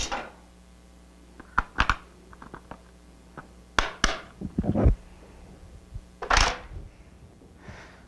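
Hard plastic kit case of a pocket-hole jig being handled and shut: a series of sharp plastic clicks and knocks, with a louder knock about six seconds in.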